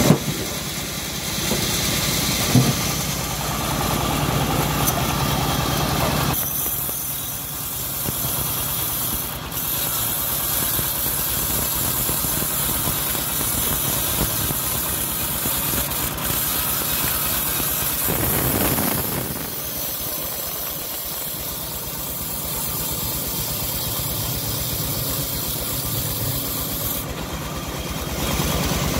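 Homemade bandsaw sawmill and its engine running steadily with a regular low beat while the blade saws through a hard jowar (johar) log, with a hiss from the cut. The sound shifts abruptly a few times.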